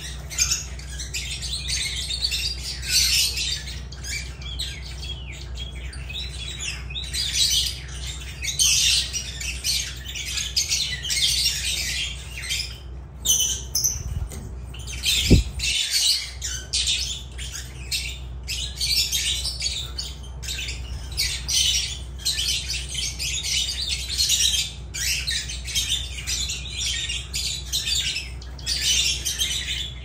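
Lovebirds (Agapornis) chattering nonstop in rapid, shrill, high-pitched squawks and chirps, over a steady low hum. A single short low thump comes about halfway through.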